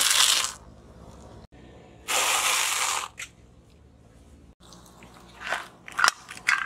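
Car tyre crushing brittle objects on asphalt: a loud crunch at the start, a longer crackling crunch about two seconds in, then a few sharp cracks near the end.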